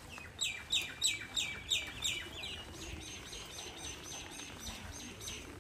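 A bird calling a long run of quick notes, each sliding downward in pitch, about three a second. The notes are loud for the first two seconds, then softer and quicker, and stop near the end.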